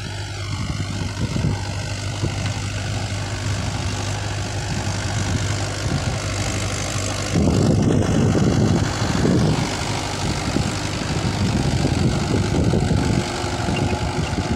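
Mahindra 415 tractor's diesel engine running steadily under load while driving a rotavator through the soil, louder for a couple of seconds around the middle as the tractor comes close.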